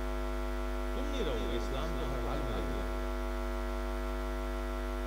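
Steady electrical mains hum with a stack of buzzing overtones through the PA sound system. A faint voice rises and falls briefly about a second in.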